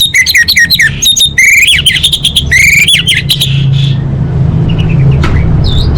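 Orange-headed thrush (anis merah) singing: a fast run of varied whistled notes sweeping up and down, thinning to a few scattered notes after about three and a half seconds. A steady low rumble runs underneath.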